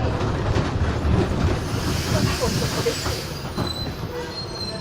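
Mercedes-Benz OF-1418 bus slowing down: its diesel engine rumble fades while short, high squeals and creaks, typical of brakes and body, sound in the middle.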